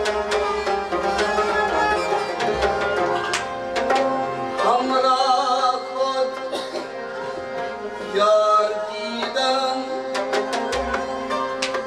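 Kashmiri Sufi devotional music: harmoniums holding steady chords under quick percussion strokes, with a man's singing voice coming in about halfway through and again near the end.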